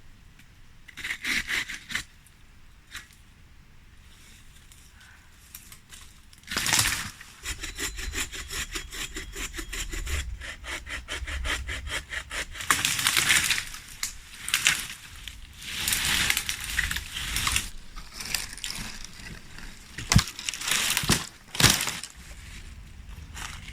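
Firewood being worked by hand: a run of quick, even rasping strokes like a small saw or blade going through wood, then a few sharp snaps near the end.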